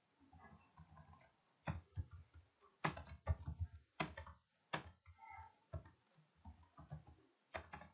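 Computer keyboard being typed on: irregular, quiet keystroke clicks, starting about one and a half seconds in.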